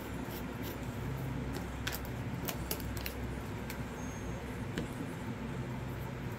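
A scattering of light, sharp clicks and ticks from small objects being handled, over a steady low hum.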